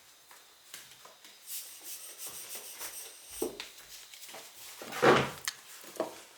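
Rummaging and handling noises of small objects being moved and knocked while a rubber air blower is looked for, with a single knock midway and a louder rustling burst about five seconds in.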